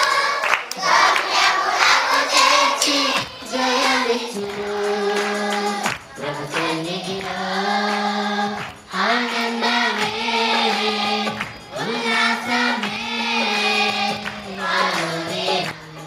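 A large group of girls singing a worship song together in unison, phrases of a few seconds with long held notes and short breaks for breath between them.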